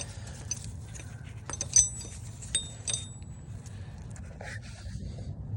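Light metallic clinks and taps of tools and bolts being handled at the engine's crank hub, a few sharp ringing clicks in the middle, over a steady low hum.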